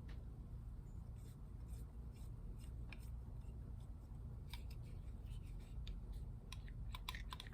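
Faint, scattered small clicks and rubbing of spray-gun parts being handled and fitted, most likely the fluid control knob being threaded on over the needle spring, with the clicks coming more often in the second half.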